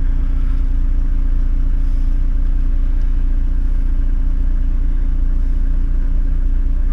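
Toyota 105 Series LandCruiser's engine running at a steady, unchanging low note, heard from inside the cabin.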